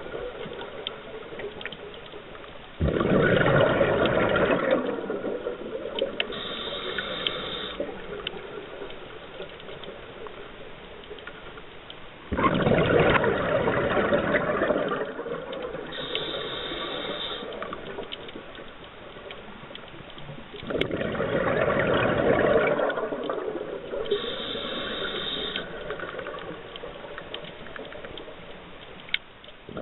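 A scuba diver breathing through a regulator underwater. Three loud bursts of rushing, bubbling exhaust, each about two seconds long and about nine seconds apart, with a shorter, higher hiss of the demand valve on each inhalation in between.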